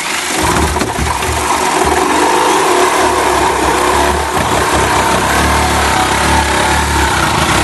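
Reciprocating saw cutting through the rusted steel floor framing of a VW Kombi, running steadily throughout.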